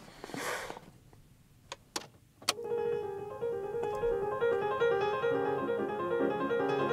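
Light background piano music with quick, separate notes, starting about two and a half seconds in. Before it there is a soft breathy puff and three short, sharp clicks.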